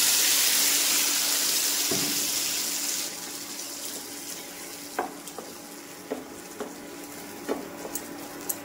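Wet ground masala paste poured into hot oil in a frying pan: a loud sizzle that fades over about three seconds, then a wooden spatula stirring the paste with light taps and scrapes against the pan.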